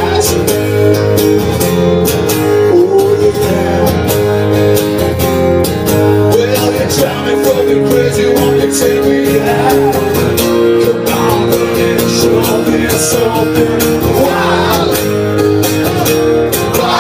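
Live rock music: electric or acoustic guitars strumming held chords in a bluesy song.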